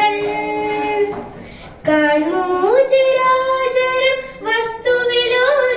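Girls singing a Malayalam song into a microphone: a long held note, a short break a little over a second in, then the melody resumes with a rising phrase.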